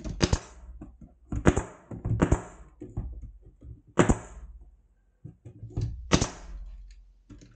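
Pneumatic stapler firing staples into wood: about five sharp shots at irregular intervals, some followed by a short hiss of air, with fainter knocks of the tool and boards between.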